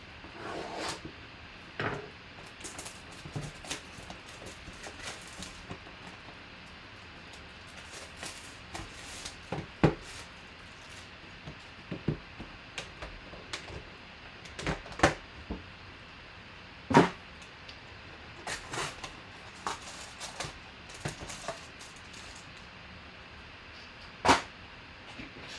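A sealed trading-card hobby box being handled: a blade slitting its shrink wrap, the cardboard lid worked open and foil packs set down on the table. There are scattered clicks, rustles and a few sharp knocks, the loudest a little after the middle and near the end.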